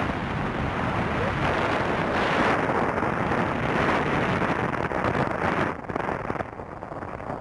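Wind rushing and buffeting over the microphone of a moving motorcycle, with the bike's engine running underneath; it gets quieter about six seconds in.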